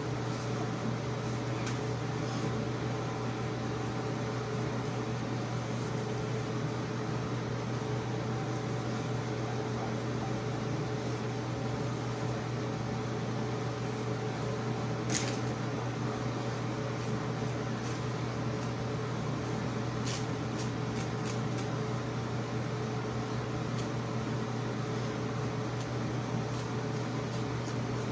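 Steady mechanical hum of a running fan, with a low drone and an even whoosh that stay unchanged; one faint click about halfway through.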